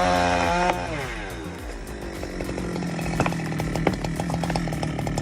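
Chainsaw held at full revs, then its engine note drops away about a second in. It carries on at a lower, steady speed, with sharp snaps or cracks from about three seconds in.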